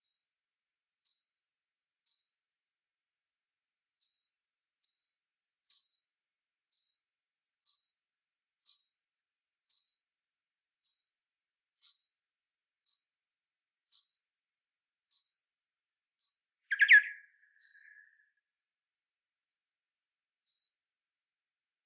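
Bats calling: a regular series of short, high chirps, each sweeping quickly down in pitch, about one a second. One lower, louder chirp comes late on.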